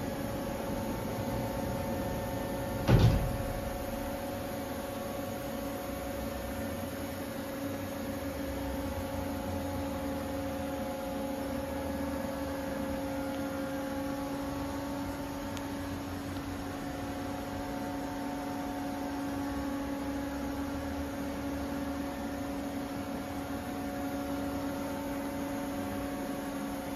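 Steady hum of industrial machinery with several steady tones, and a single sharp knock about three seconds in.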